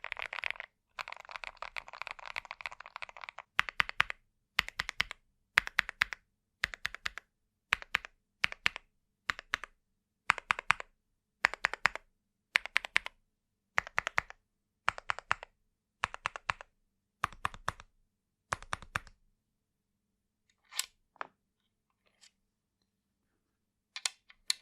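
Typing on a CIDOO V75 Plus gasket-mounted aluminium mechanical keyboard with CIDOO Mint linear switches, which gives a deep, thocky sound. It starts as fast continuous typing, then runs as evenly spaced keystrokes about every half second, then stops with only a few single clicks near the end.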